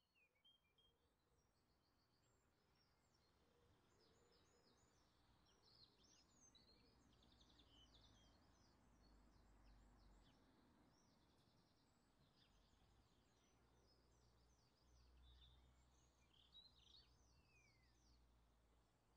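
Faint chorus of many small birds chirping, with quick falling notes, over a low steady rumble of outdoor ambience.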